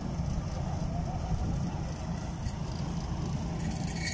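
Diesel engines of Kubota combine harvesters, a DC70 and a DC-68G, running with a steady low rumble.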